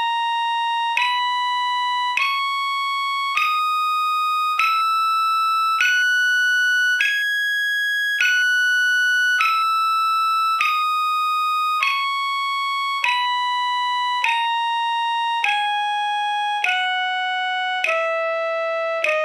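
Single held instrument notes stepping through the F natural minor scale, one note about every 1.2 seconds: they climb to the top note about eight seconds in, then walk back down.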